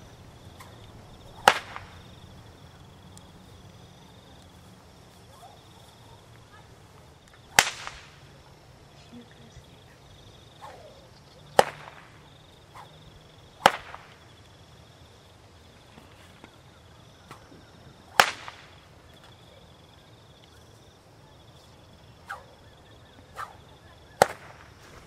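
A whip cracking: single sharp cracks at irregular gaps of one to six seconds, about six loud ones with a few fainter ones between.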